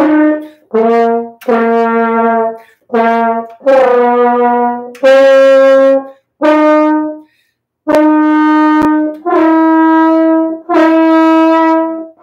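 A French horn plays a slow melody in separately tongued notes, each a second or so long, with short breaths between. The last note is held longest and runs on past the end.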